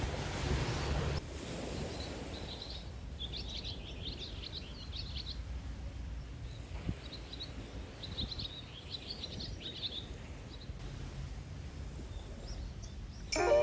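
Wind and surf noise for about the first second, cutting off suddenly, then small birds chirping in two quick, twittering spells over a soft low background hum. Music starts right at the end.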